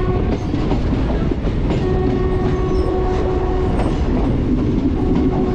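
Passenger express train running through a station, with a loud steady rumble and wheels clattering over the rail joints. A steady tone comes and goes over the rumble.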